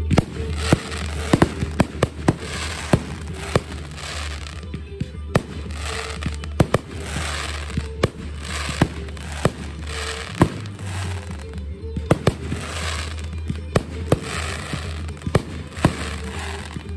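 Fireworks display: an irregular run of sharp bangs from shells launching and bursting, about one or two a second, with swells of hiss between them. Music plays underneath throughout.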